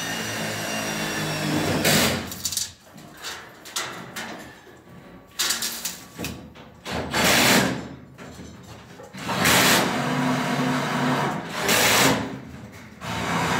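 Power drill or screw gun running in several short spurts of a second or two each, with harsh rasping bursts of metal against metal from the light-gauge steel framing.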